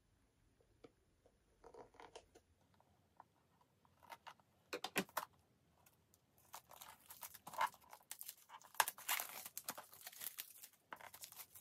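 Plastic wrapping being snipped with scissors and torn off a small boxed pin: scattered faint snips and rustles, then a few seconds of dense crinkling and tearing near the end.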